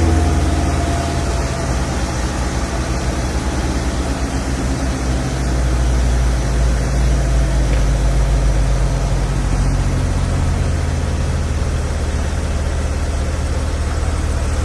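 A steady low engine rumble, like a motor vehicle running, with an even hum throughout.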